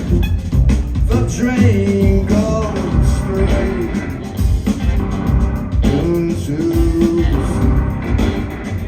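A live rock band playing, with a singing voice over drums, bass and guitar.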